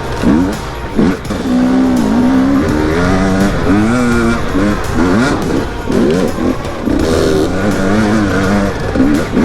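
Two-stroke KTM 250 dirt bike engine revving up and down in quick, repeated blips as the rider works the throttle on a trail.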